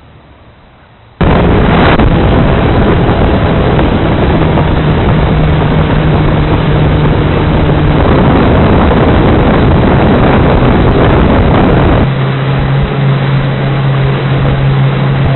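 A motorboat running underway: a loud rushing noise over a steady low engine hum, starting abruptly about a second in and easing slightly near the end while the hum continues.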